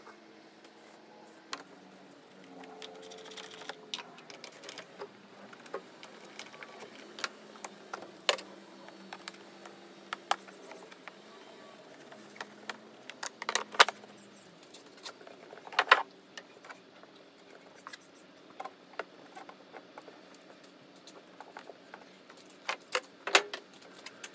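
Plastic scuttle trim and battery access cover being handled and pressed back into place: an irregular string of sharp clicks and knocks, the loudest about 14 and 16 seconds in.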